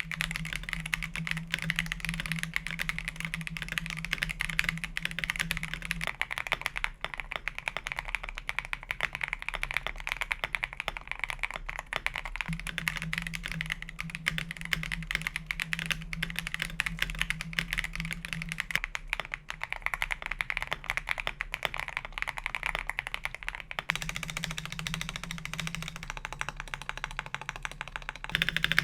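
Continuous fast typing on an Akko PC75B Plus mechanical keyboard with lubed Akko CS Crystal linear switches, PE foam and a two-layer tape mod. The keystrokes form a dense, unbroken stream of clicks.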